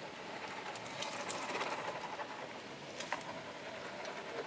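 Radio-controlled scale crawler's small electric motor and geared drivetrain running slowly as it crawls over rock, with a few sharp clicks about a second in and again near three seconds.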